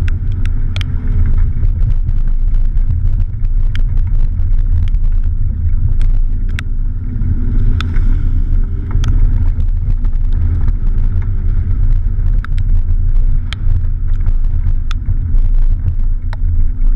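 Fiat Panda 4x4's 1.0-litre engine running under way on a rough dirt track: a steady, heavy low rumble of engine and drivetrain, with frequent sharp clicks and knocks from the bumpy ground.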